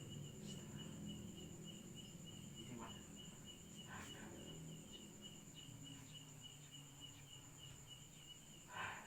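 Faint insect chirping, a cricket-like pulse repeating about three times a second, with a steady high-pitched tone and low hum beneath it. A short, louder noise comes near the end.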